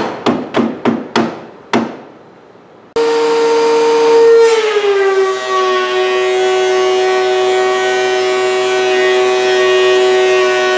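About six quick hammer blows in the first two seconds. Then a benchtop thickness planer runs with a steady high whine. About a second and a half in, the whine drops slightly in pitch as the board feeds into the cutterhead, and it keeps cutting under load.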